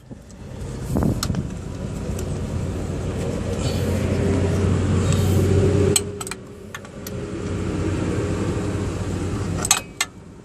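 A motor vehicle engine running steadily. It cuts out sharply about six seconds in, then comes back, with sharp clicks at the break and again near the end.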